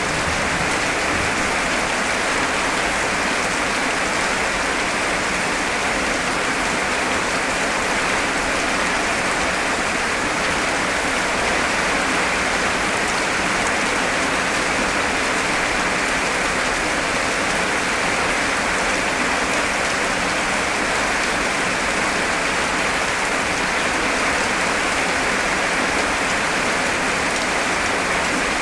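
Heavy rain falling steadily as a dense, even hiss, with no thunder.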